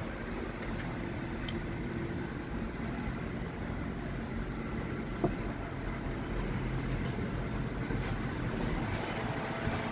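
Steady mechanical hum inside a Linden Comansa tower crane's operator cab, with one short click about five seconds in.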